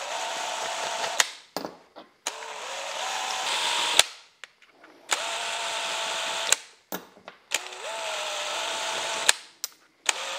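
Cordless drill spinning a deburring tool in short bursts, one burst per washer hole, to clean the edge left around the hole; the motor whine rises in pitch as each run starts. There are four runs of about a second and a half, each ending in a sharp click.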